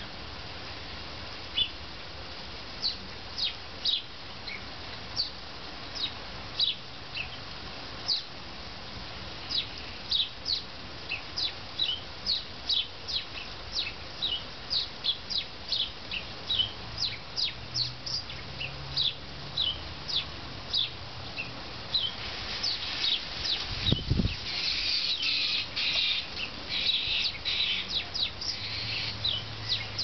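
Small birds chirping: short, high, falling chirps repeated about once or twice a second, growing into a denser chatter of several birds near the end, with a dull low thump about four-fifths of the way through.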